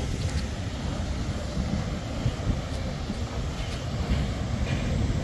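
Wind buffeting the microphone: a continuous, unevenly fluttering low rumble.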